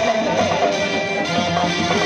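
Live traditional Gilgit-Baltistan folk music: a wavering melody over a steady drum beat.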